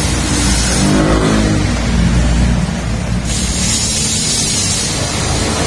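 Road traffic passing close by on a highway: a vehicle engine rises in pitch as it approaches and falls away as it passes, over a steady low rumble, and another vehicle builds up near the end.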